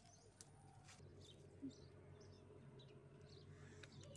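Near silence outdoors, with faint scattered bird chirps and a single soft tap about one and a half seconds in.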